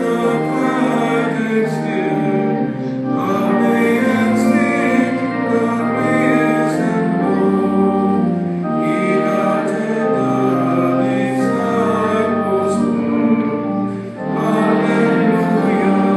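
Voices singing a slow hymn in long held phrases, with organ accompaniment, and a brief break between phrases about fourteen seconds in.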